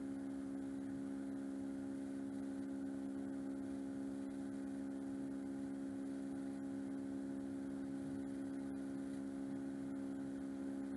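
Steady electrical hum made of several fixed low tones that do not change.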